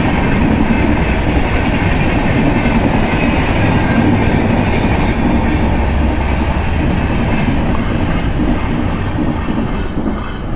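Passenger train passing close by at a level crossing: a steady, loud rumble of coach wheels running over the rails, easing off near the end as the train goes by.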